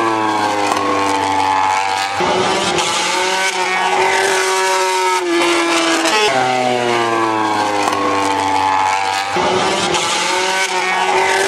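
MotoGP racing motorcycles with 800 cc four-stroke engines passing through a corner one at a time. Each engine note falls as the bike slows into the turn, then holds and slowly climbs as it leans through. A second bike comes by about six seconds in.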